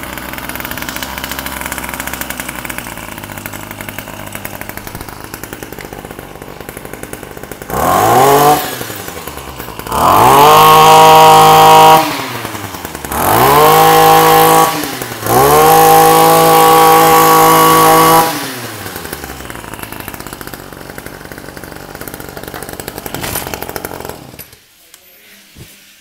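Ryobi 26cc two-stroke brush cutter engine on a test run: idling, then revved four times with the throttle, each time rising sharply in pitch, holding, and dropping back to idle, the first rev short. It idles again and is switched off near the end.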